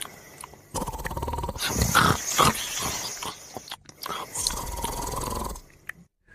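A sleeping dog snoring in rough, growl-like breaths, some with a thin whistle over them. The sound is in short spliced stretches, each cut off abruptly.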